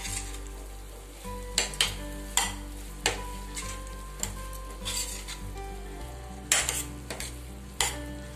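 A steel spoon stirring and scraping soya chunks through thick masala in a stainless steel pan, in irregular strokes every second or so, over a light sizzle of frying.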